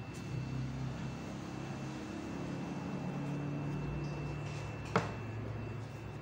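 A low, steady motor hum, with one sharp click about five seconds in.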